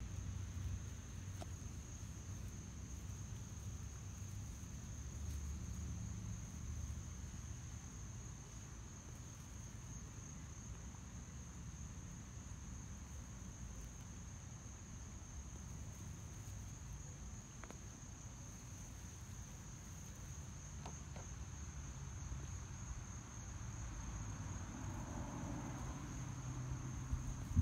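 A steady, high-pitched insect chorus drones without a break over a low rumble.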